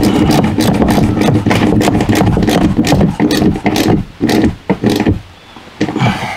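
Steel slide-room cables and their metal bracket clicking and rattling as they are handled. Under them is a steady engine-like hum that breaks up and drops away about five seconds in.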